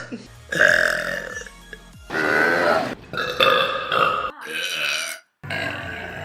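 Several loud human burps from different people, one after another with abrupt cuts between them, each up to about a second long.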